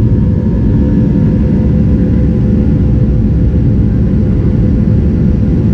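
Cabin noise of a Boeing 737-700 in its climb after takeoff, heard from a window seat beside the wing: its CFM56-7B turbofan engines running under power, a loud steady rumble with a steady hum above it.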